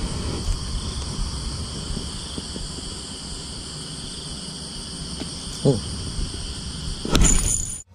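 Steady chorus of insects, several shrill unbroken tones layered together, over a low rumble. Near the end a louder rush of noise comes in and cuts off suddenly.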